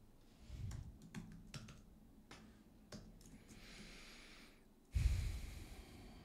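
Scattered clicks of computer keys and a mouse. A short hissy stretch follows, then a sudden louder rush of noise about five seconds in.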